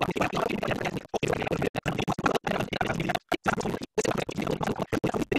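Crackling, hissing noise over an online video call's audio, cutting out to silence for brief moments several times.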